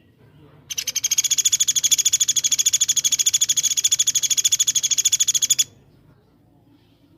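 A songbird's fast, rapid-fire trill of about ten clear, high notes a second, held for about five seconds and cut off abruptly. This is a 'tembakan' phrase of the kind played as masteran to teach caged songbirds.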